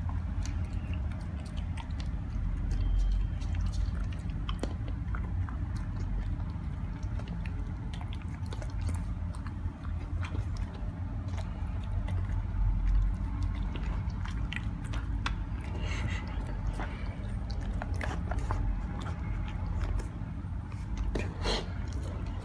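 A Siberian husky chewing and crunching small pieces of dry dog treat picked off the floor, heard close up. There are many sharp, irregular crunches.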